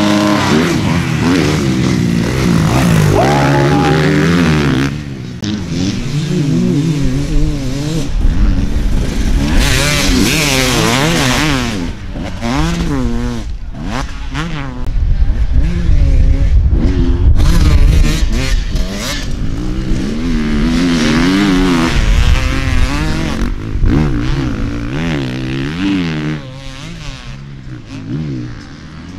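Enduro dirt bike engines revving hard, their pitch swinging rapidly up and down as the throttle is worked on and off. Several bikes are heard in turn.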